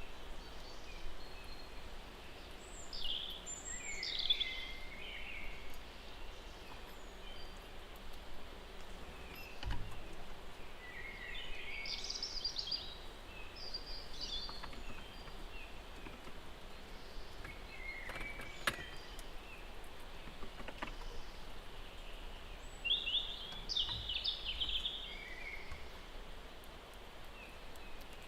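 Small birds chirping in about four short bursts of high song over a faint steady outdoor hiss, with a couple of soft clicks.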